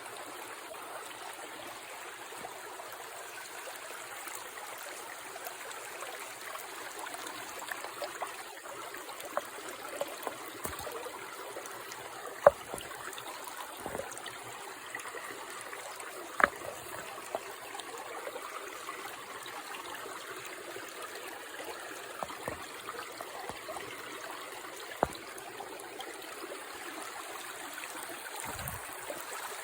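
Shallow creek water running and trickling steadily, with scattered sharp clicks or knocks, the loudest about twelve and sixteen seconds in.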